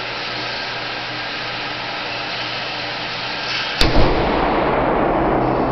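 A 1911A1 .45 ACP pistol fires one round of a semi-wadcutter reload about four seconds in: a sharp crack, with a second crack a fraction of a second later, then a long echo in the concrete range. A steady fan-like rush runs underneath.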